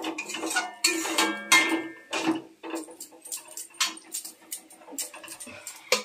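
Metal ladle stirring thick elephant-apple chutney in a metal pan, with repeated scrapes and clinks against the pan's side, some ringing briefly.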